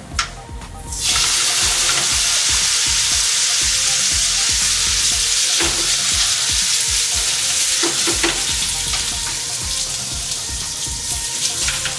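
Wet spaghetti dropped from the boiling water into a frying pan of hot bacon fat, setting off a loud sizzle about a second in that keeps going steadily. A few light knocks can be heard over it.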